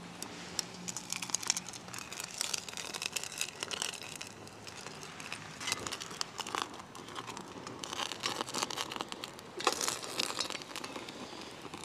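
Irregular crackling and crinkling from cooking over an open campfire: a fire flaring in a frying pan, and food and gear being handled among dry leaves, with many small clicks and rustles.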